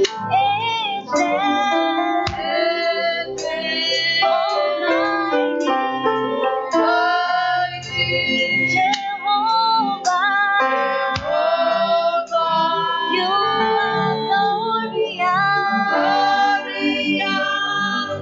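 Worship song: a woman singing over instrumental backing with guitar.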